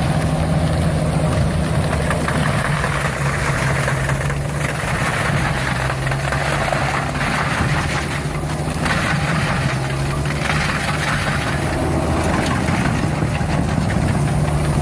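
Heavy diesel machine engine running steadily, with a rougher noise from the working machine rising and falling over it and dropping away briefly a few times.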